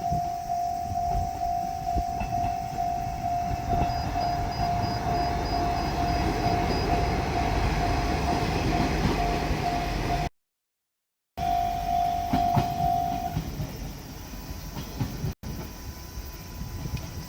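Japanese level-crossing warning bell ringing in a fast, even pulse while a JR Shikoku diesel railcar runs over the crossing, its rumble building from about four seconds in. The sound drops out for about a second, then the bell rings again and stops a couple of seconds later.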